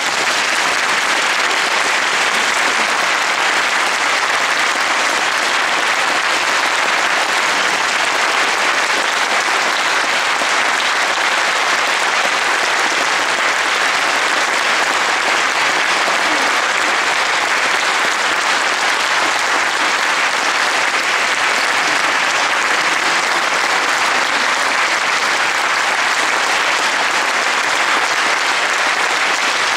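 Audience applauding steadily, a dense, even clapping at a constant level.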